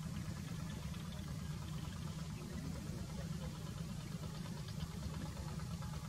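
A steady low rumble that holds even throughout, with no distinct events over it.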